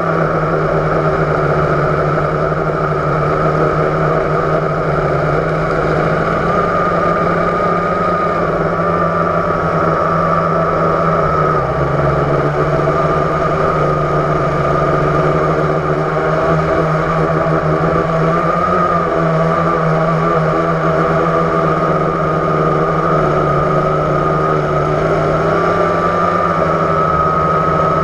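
Blade 350 QX quadcopter's electric motors and propellers whining steadily, recorded by the camera on the craft itself, the pitch wavering slightly as the throttle shifts.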